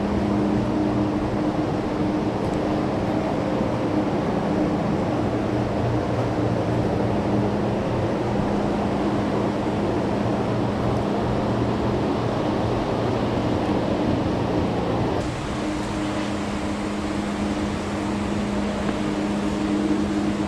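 Steady rush of flowing river water with a low, steady hum under it; the sound changes abruptly about fifteen seconds in.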